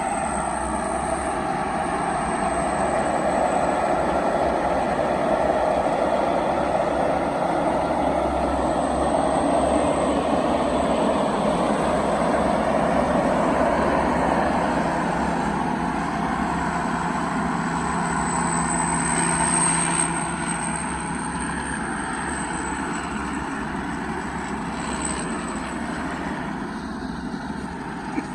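Small single-cylinder 195 diesel engine fitted with a turbo, running hard under load, with a high turbo whistle that rises twice. The engine eases off a little about twenty seconds in.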